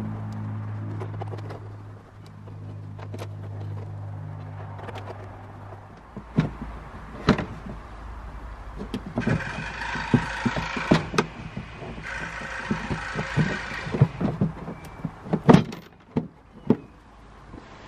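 A socket ratchet and plastic air filter housing being worked on a VW Up! engine: irregular clicks, knocks and rattles as the box screws are undone and the housing lid is handled. Before that, for about the first six seconds, a steady low hum that stops suddenly.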